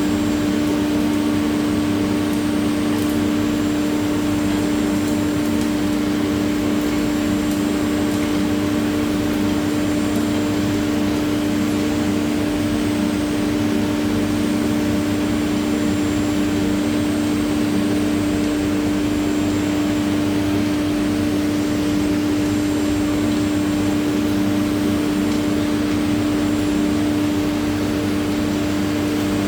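Spindle of a linear-ATC CNC router running steadily while cutting, a constant hum with one strong unchanging pitch over a noisy hiss.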